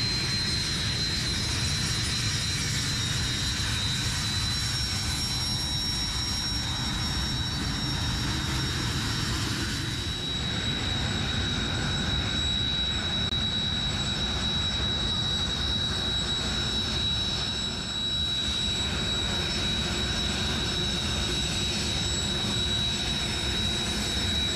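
Jet trainer turbofan engines running, a steady rumbling roar with a sharp high whine held at one pitch.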